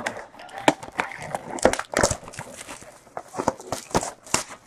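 Printed plastic wrapper being torn and peeled off a sealed box of trading cards: an irregular run of sharp crackles and crinkling rustles.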